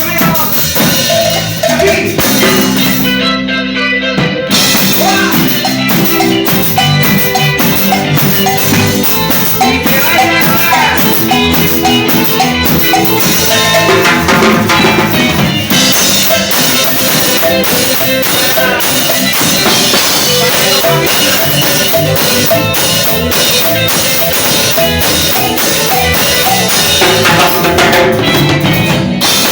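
Live cumbia band playing, with the drums marking breaks over bass and melody. About three seconds in the drums and cymbals drop out for a moment while low notes hold, then the full band comes back in.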